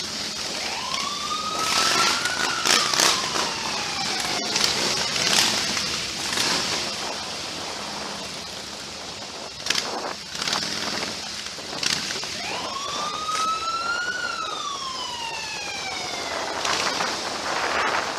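A siren wailing in two long cycles, each rising in pitch and then falling slowly, the second starting about ten seconds after the first. Scattered clicks and knocks run over a steady hiss.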